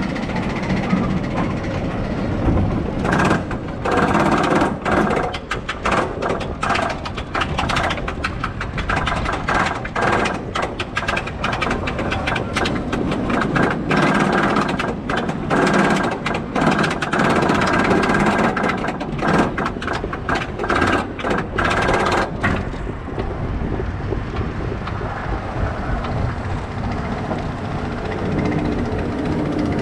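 A Mack Rides bobsleigh roller coaster train being hauled up its chain lift hill. The lift chain clatters with a rapid, irregular run of clicks from about three seconds in until about two-thirds through, then gives way to a steadier mechanical rumble as the train nears the crest.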